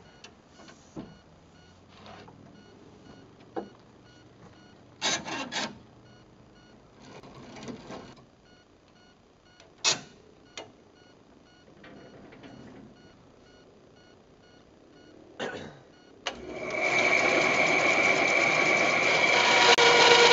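Scattered knocks and taps, then about four seconds before the end a power tool starts up, spinning up over about a second and then running loudly with a steady whine.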